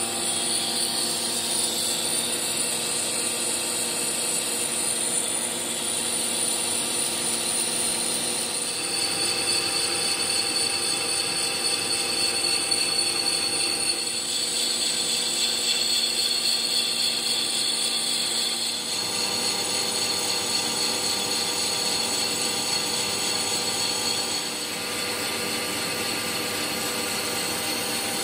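Metal lathe running while a tool turns a metal clutch part and throws off chips: a steady whine of motor and gears with cutting hiss. The tone changes abruptly three times.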